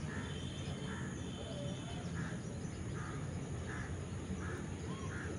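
A crow cawing in a regular series, about one caw every three-quarters of a second, over a steady low background rumble.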